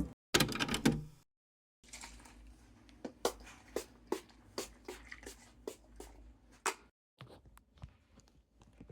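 Light clicks and taps, roughly two a second, over quiet room tone, after a short louder rustle just after the start.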